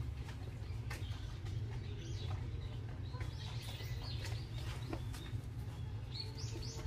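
Small birds chirping on and off, with a quick run of short rising chirps near the end, over a steady low hum.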